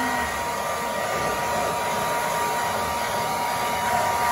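Hand-held blow dryer running steadily while drying a wet dog's coat: an even rush of air with a constant whine.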